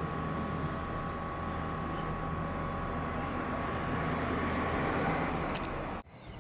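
Steady mechanical hum with a faint whine, cutting off suddenly near the end.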